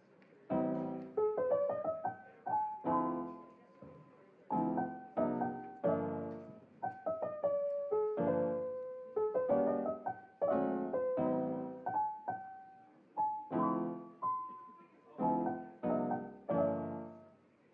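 Background piano music: a mellow tune of chords and single notes struck and left to die away, about one or two a second.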